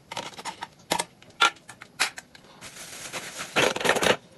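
Kitchen food-preparation sounds: irregular sharp knocks and clicks of utensils, then a longer scraping noise that is loudest near the end.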